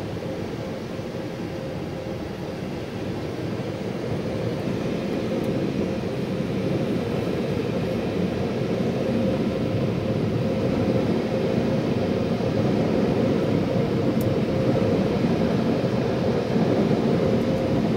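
Car wash dryer blowers running, heard from inside the car: a steady rushing noise with a steady hum in it, growing gradually louder.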